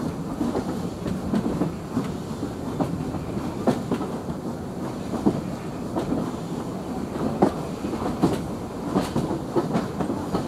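Passenger coach of a steam-hauled heritage train running along the track: a steady rumble of wheels on rail, with sharp clickety-clack knocks every second or so as the wheels cross rail joints. Heard from an open carriage window.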